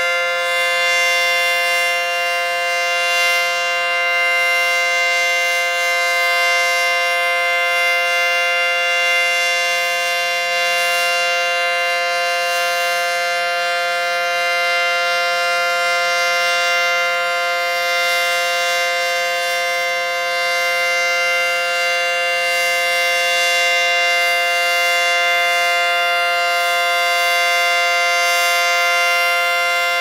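ACA Banshee 115-C electromechanical siren sounding its steady Alert signal in a routine monthly test, holding one unbroken, unwavering pitch.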